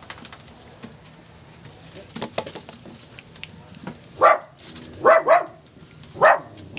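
Dogs barking: about five short, sharp barks starting about four seconds in, two in quick succession.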